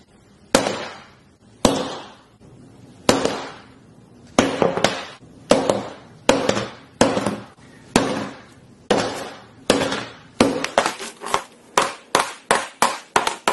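A hammer striking the glass screen of a Samsung Galaxy S10 Plus again and again, cracking it. The blows come a second or more apart at first, then quicken to about two or three a second.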